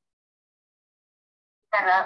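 Dead silence on a video-call line, then a voice starts speaking near the end.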